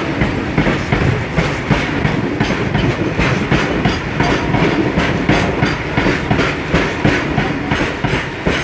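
Train running on the rails: wheels clicking over rail joints in a quick, repeating rhythm over a continuous low rumble.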